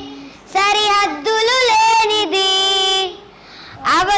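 Children singing a song: a melodic line with long held notes that pauses briefly about three seconds in, then starts the next line just before the end.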